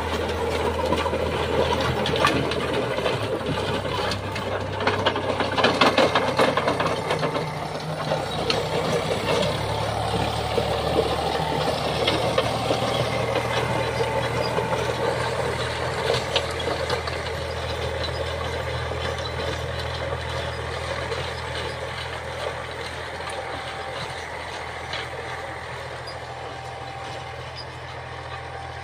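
Eicher 485 tractor's three-cylinder diesel engine running steadily under load while the Soil King rotavator behind it churns and clatters through dry, cloddy soil. Loudest around five to seven seconds in, then slowly fading over the last ten seconds.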